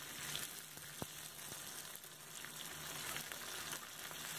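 Masala-marinated prawns shallow-frying in hot oil in a pan, a steady sizzle, with a light click about a second in.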